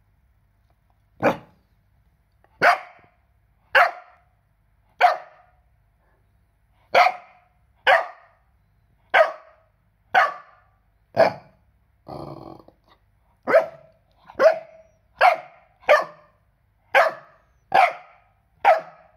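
A four-month-old Cardigan Welsh Corgi puppy barking, single sharp barks roughly once a second with a short pause near the start of the second third. About twelve seconds in there is one longer, rougher sound between the barks.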